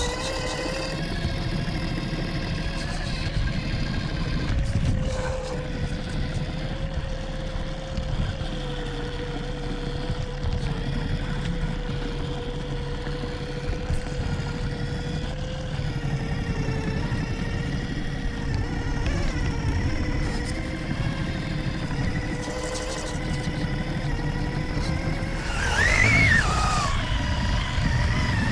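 Losi Night Crawler RC rock crawler's electric motor and geared drivetrain whining steadily as the truck crawls over rocks, over a low rough rumble. Near the end the whine briefly rises sharply in pitch and falls back as the motor speeds up.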